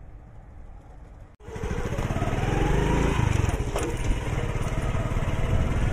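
Faint background noise, then, after an abrupt cut about a second and a half in, a small motorcycle engine running close by as it rides, revving up briefly about a second later.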